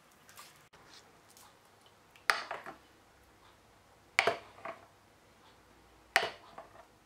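A ladle stirring tomato sauce in a glass bowl, knocking against the glass three times about two seconds apart, each knock followed by a few fainter clinks.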